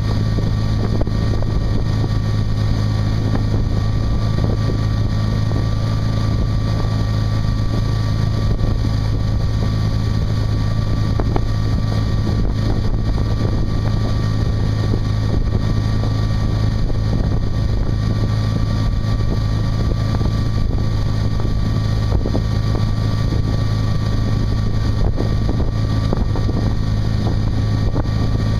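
Ski boat engine running steadily at towing speed as it pulls a water skier, a constant hum with rushing wake water and wind on the microphone.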